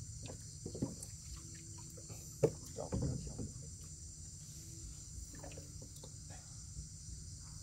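Night insects, crickets, chirping steadily at a high pitch over a low, steady rumble. A single sharp knock comes about two and a half seconds in, with a few faint short sounds here and there.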